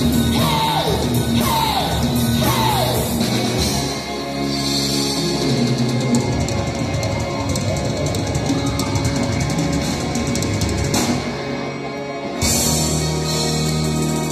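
Live hard rock band playing loudly: electric guitars, bass, keyboards and drum kit. In the first few seconds there is a run of falling wails, about one a second. Near the end the band drops back briefly, then comes crashing back in at full volume.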